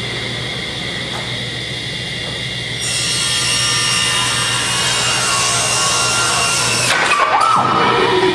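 Table saw running with a steady hum. About three seconds in, the blade starts cutting a wooden board, louder and more shrill, and the cut ends about seven seconds in.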